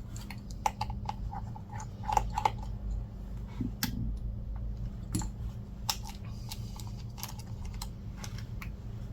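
Scattered light clicks and taps of small repair tools and parts being handled on an iPad Air during screen removal, loudest about two seconds in, over a steady low hum.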